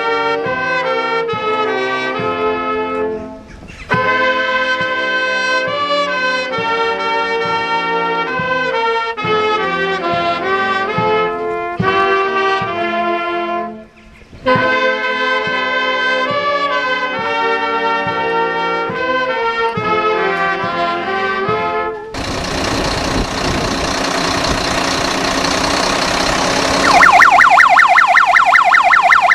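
A brass band plays for about twenty seconds, pausing briefly twice between phrases. It then gives way to a loud steady rushing noise, and near the end the fire engine's electronic siren starts with a rapid warble.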